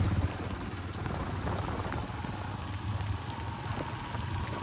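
Yamaha motorcycle riding through heavy rain: a low, steady engine hum under a hiss of rain and wet tyres on the road. It is louder for a moment at the very start, while the front wheel throws up water from the flooded road.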